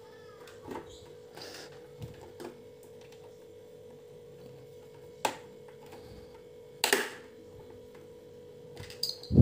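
Plastic clicks and snaps of a Venom-style visor being pressed and worked on its side mount on a KYT Galaxy Slide motorcycle helmet. A handful of short clicks are spread out, the loudest a double snap about seven seconds in, over a faint steady hum.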